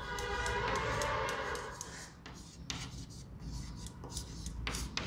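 Chalk writing on a blackboard: a run of short scratches and taps as chalk strokes are drawn. In the first two seconds a faint, steady hum in a voice fades out.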